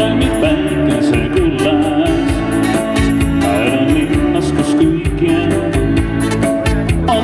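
Live band music through PA speakers: a man singing with acoustic guitar and Yamaha keyboard accompaniment over a steady beat.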